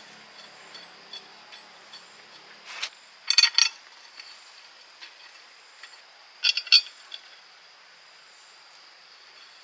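Metal parts and tools being handled during gearbox work: scattered light ticks, with two short bursts of sharp metallic clinking and rattling, about three seconds in and again about six and a half seconds in.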